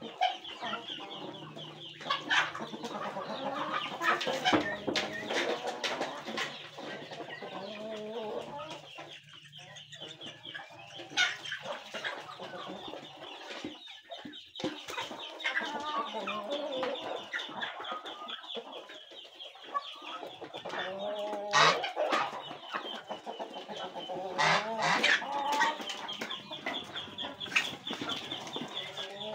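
A mixed flock of chickens, ducks and geese feeding, with chickens clucking throughout and other poultry calls mixed in, and scattered sharp clicks and knocks among the calls.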